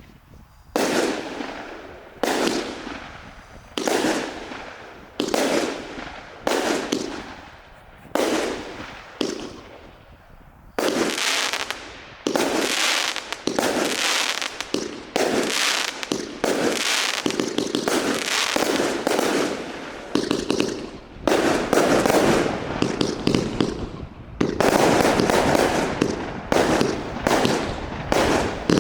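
Total FX 'Magic Realm' firework barrage firing: shot after shot bursting with a crackling hiss that fades away, about one a second at first, then coming faster and overlapping from about halfway through.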